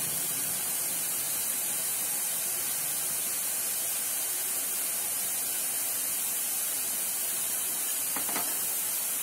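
Boondi (drops of chickpea-flour batter) deep-frying in hot ghee in a steel kadhai: a steady sizzle.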